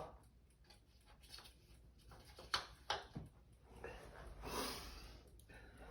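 Faint handling sounds of driver bits and an impact drill: a few light clicks around the middle, then a brief soft rustle.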